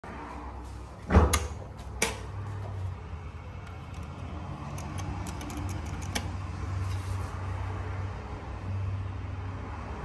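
A heavy clunk about a second in and a sharp click a second later at a hydraulic elevator's closed single-slide hall door. Then a steady low hum with a few light clicks as the hall call button is pressed.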